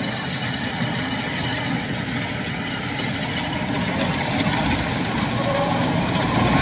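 Kubota DC-105X combine harvester's diesel engine and cutting machinery running steadily while it harvests rice, growing a little louder as the machine comes closer.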